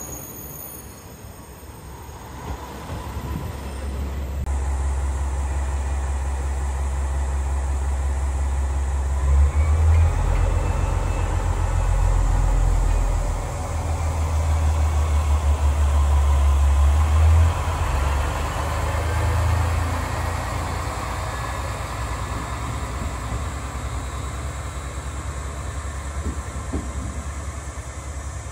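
Diesel railcar engine (red JR West KiHa 40-series) running with a loud, deep drone and a faint whine that rises and falls. The drone swells through the middle and eases off over the last several seconds.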